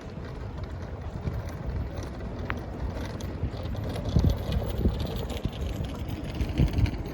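Wind buffeting the microphone in irregular low gusts over a steady rumble of city traffic, with one brief thin squeak about two and a half seconds in.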